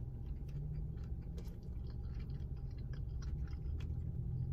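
Close-up chewing of a mouthful of shrimp bowl, wet clicks and small crunches scattered throughout, over a steady low hum.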